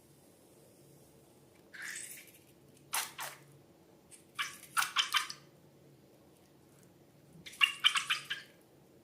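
Slime squelching wetly in four short bursts, the last two crackling with many small pops.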